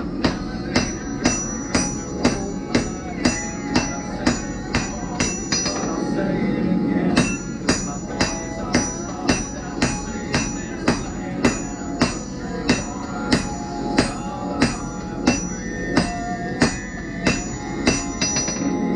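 Hand hammer striking a glowing canister Damascus billet on an anvil, about two blows a second, each with a short metallic ring. There is a brief pause about six seconds in, then the blows go on.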